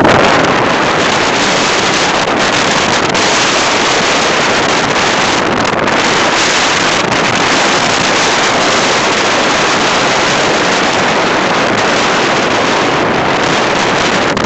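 Strong storm wind buffeting the microphone over rough surf breaking and washing onto a concrete sea wall: a loud, steady rush of noise that does not let up.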